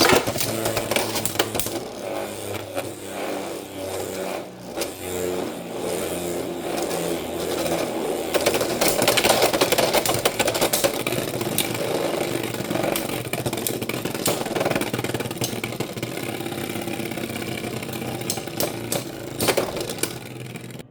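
Beyblade X spinning tops whirring in a battle, with many sharp clicks and clashes as they collide.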